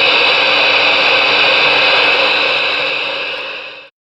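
Superstar SS-158FB4 radio's speaker giving a steady receiver hiss (static) on the open channel. It fades and cuts off near the end.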